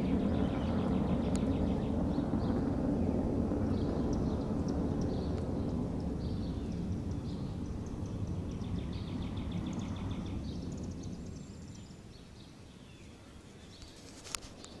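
Fighter jet's engine rumble dying away as the jet flies off, fading out over about twelve seconds. Birds chirp throughout.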